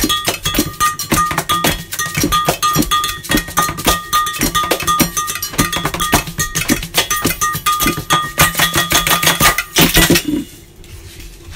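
A multitracked found-object and body-percussion groove: rapid taps and knocks on glass measuring jugs, a jar and pots, mixed with shakes, scrapes and hand claps in a steady fast rhythm. A clear ringing clink from struck glass recurs all through. It builds to a loud final hit about ten seconds in and then stops abruptly.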